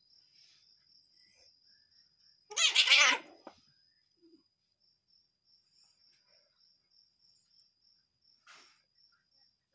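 Domestic cat giving one loud, angry cry about two and a half seconds in, lasting about a second, with a fainter short cry near the end.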